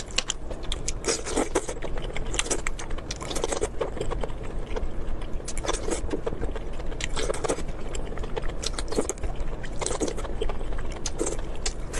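Close-miked eating sounds: chewing and mouth smacking, a dense, irregular run of sharp wet clicks.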